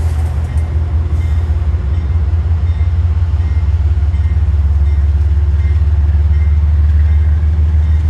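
Train running past, a loud, steady low rumble.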